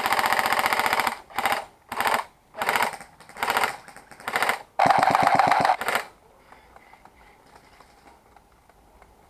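Airsoft gun firing on full auto in bursts close by: a burst of about a second, five short bursts, then another burst of about a second, each a rapid even rattle of shots.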